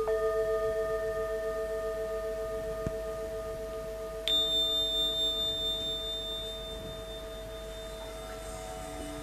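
Metal singing bowl struck with a wooden mallet, ringing with two steady tones that slowly fade. About four seconds in a second, much higher bell-like strike rings out, and near the end a large crystal singing bowl starts to sing as its rim is rubbed with a mallet, adding a low swelling tone.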